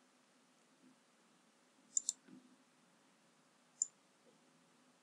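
Computer mouse button clicking: a quick double click about two seconds in and a single click near four seconds, over a faint steady hum.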